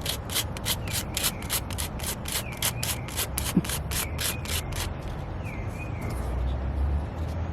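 Quick back-and-forth hand strokes of an abrasive on a wooden earring blank, about four rasping strokes a second, scraping off raised, pooled paint. The strokes stop about five seconds in.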